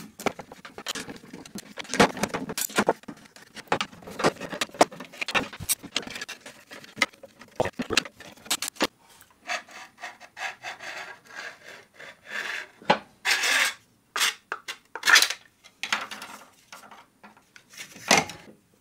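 3D-printed plastic blastgate being handled and pulled apart by hand: an irregular run of clicks, knocks and short scrapes of the plastic housing and disc. A few longer scrapes come in the second half.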